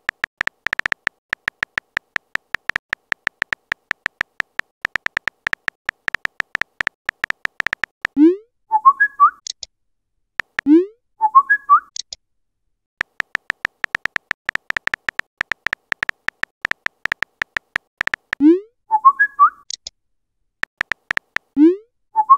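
Phone keyboard typing clicks, rapid and even, as a chat message is tapped out. The typing is broken four times by a short message tone, a low rising swoop followed by quick chirping notes, as messages are sent and received.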